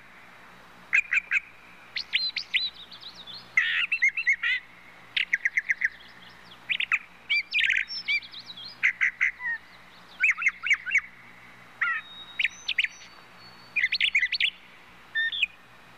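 Birds chirping and twittering, many short quick calls in clusters with brief pauses between them.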